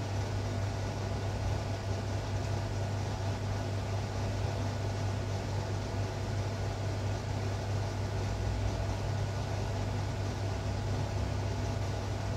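Steady low hum with a faint hiss, unchanging throughout: background room noise with no distinct event.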